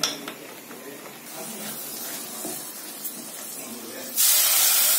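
A metal spoon clinks in a small pan of cashews frying in ghee. About four seconds in, a sudden loud sizzle starts as the hot ghee and cashews are poured into the carrot halwa.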